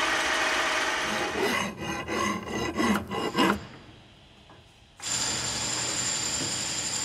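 Milling machine running as it machines a steel packing piece, with a steady hum carrying held tones. About a second in, irregular scraping and clattering of metal that stops suddenly, and from about five seconds in a steady hiss with a high whine.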